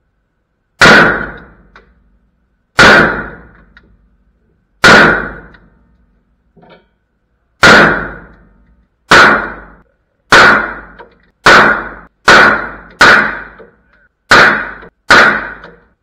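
Eleven single rifle shots from a Springfield Armory Saint AR-15 fired without a suppressor. Each sharp crack trails off in a short echo. The first few come about two seconds apart, then they quicken to roughly one a second.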